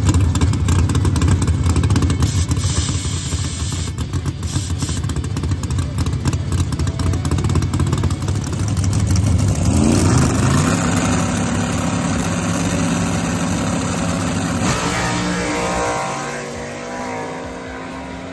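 Chevy Nova no-prep drag car's engine at high revs through a smoky burnout, rough and loud. About ten seconds in the revs rise and hold steady on the line, and near the end the car launches and the sound fades off down the track.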